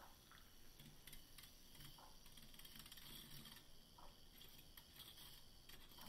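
Faint whirr of a handheld battery milk frother whisking matcha in a mug, with small scattered ticks.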